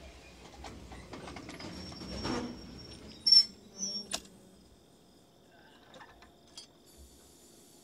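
Footsteps crunching on railroad track ballast, then a few sharp metallic clicks and clanks, the loudest a little over three seconds in, as a trainman handles the lock and lever of a hand-thrown switch stand.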